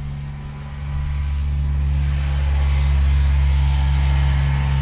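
A golf-cart-type vehicle driving past, its noise swelling about a second in and staying up. A steady low hum runs underneath.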